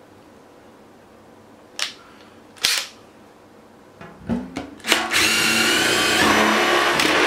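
Power drill with a cone-shaped bit boring a hole through a bucket lid. Two sharp knocks come first, then a few short trigger blips, and from about five seconds in the drill runs steadily with a whine as it cuts.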